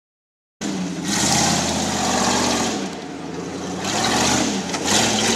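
Jeep Grand Cherokee's engine revving hard under load, its pitch rising and falling, with repeated bursts of hissing noise over it. The sound cuts in suddenly about half a second in.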